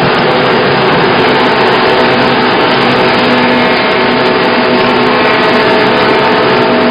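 Wood sawdust making machine running, a loud steady mechanical noise with a faint hum of several steady tones underneath.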